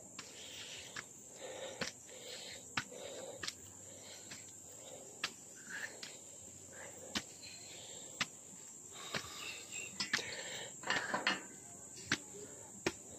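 Footsteps climbing concrete stairs: short sharp scuffs about once a second, over a steady high-pitched insect drone such as crickets.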